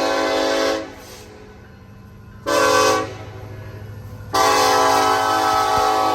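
Locomotive air horn sounding for a railroad crossing: a blast that ends about a second in, a short blast, then a long blast, each a steady multi-note chord, over a steady low hum.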